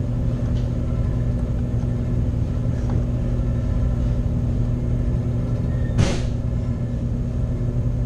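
Walk-in freezer condensing unit running with a steady hum, with a single sharp click about six seconds in.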